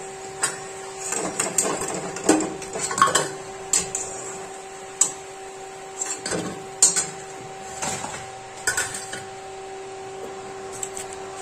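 Slotted metal spatula knocking and scraping against a metal karahi at irregular intervals as fried fritters are lifted out of the oil, over a steady hum.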